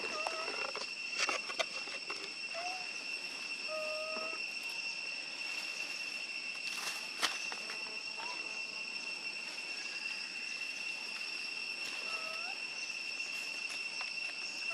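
Steady high-pitched insect drone, with a few short chirping calls over it and a couple of light clicks, about a second in and about seven seconds in.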